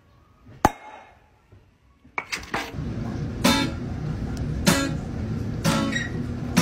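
A guitar strummed in a slow rhythm, with a strong strum about once a second, starting about two seconds in. Before it, a single sharp click.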